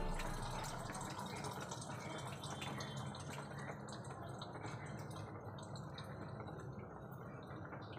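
Fish soup boiling in a pan: faint, steady bubbling with small pops of bursting bubbles.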